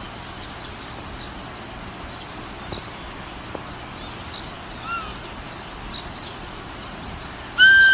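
Outdoor morning ambience with many small birds chirping, a quick trill of about eight notes around four seconds in, and a loud, steady-pitched call near the end.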